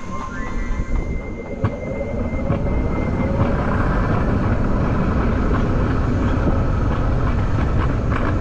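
Alpine coaster sled running on its steel rails: a steady rumble of the wheels that builds over the first few seconds as the sled picks up speed, with a faint rising whine.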